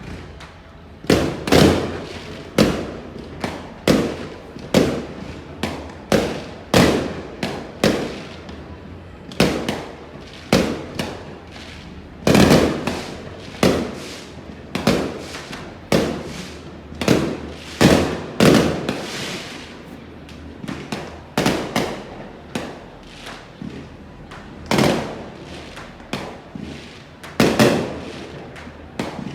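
Fireworks going off: a string of about two dozen sharp bangs, roughly one a second, each trailing off in a rumbling echo, with a few brief lulls between them.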